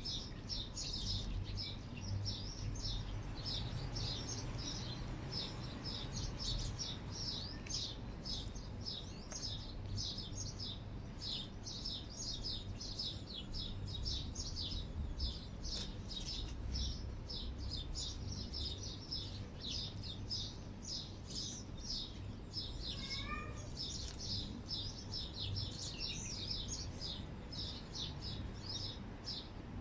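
Small birds chirping continuously in a dense, rapid chatter, over a low steady rumble.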